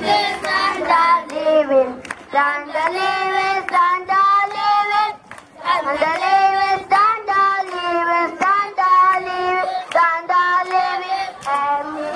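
A child singing a song into a microphone, breaking off briefly about five seconds in.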